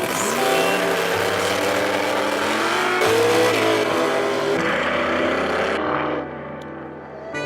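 Car engine revving and accelerating, its pitch rising twice in the first few seconds. About six seconds in, the sound turns muffled and drops in level.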